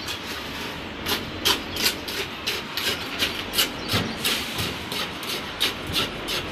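Steel tamping rod plunging into fresh concrete in a metal slump cone, rodding a layer to compact it for a slump test. Short, regular strokes come about three times a second, starting about a second in.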